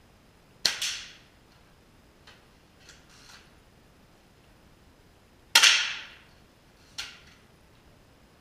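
Air rifles firing in a low basement range: three sharp shots, one about half a second in, the loudest a little past the middle, and a third about a second and a half after that. Each has a short echoing tail, and a few faint clicks come between the first two.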